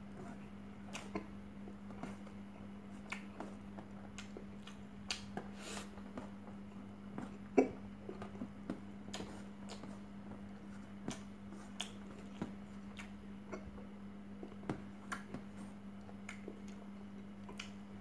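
A person eating rice by hand: scattered small clicks and smacks from chewing and from fingers scooping rice off a steel tray, with one sharper click about seven and a half seconds in. A steady low hum runs underneath.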